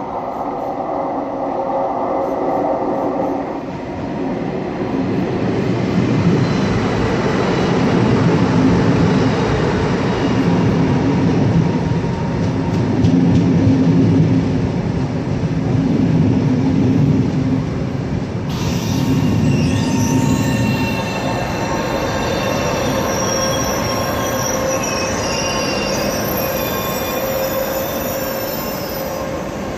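PKP Intercity ED250 Pendolino electric train rolling past with a steady low rumble of wheels on rails. About two-thirds of the way in, a high wheel squeal of several sustained tones joins and lasts to the end.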